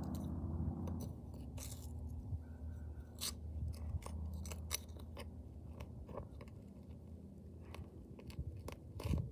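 Small hand weeding tool crunching and scraping into dry soil as weeds are dug out and pulled, in scattered short crackles with a louder flurry near the end.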